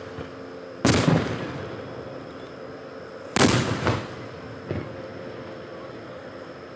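Aerial fireworks shells bursting. There is a loud boom about a second in and another about three and a half seconds in, each trailing off over about half a second, and a fainter bang just before five seconds.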